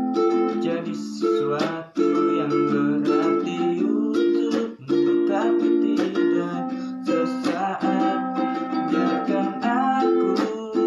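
Instrumental background music with plucked strings playing chords, briefly dropping out about two seconds in and again near five seconds.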